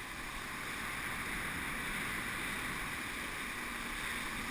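Steady rush of water spray and wind from a water skier towed at speed, heard from a helmet-mounted camera, swelling slightly about a second in.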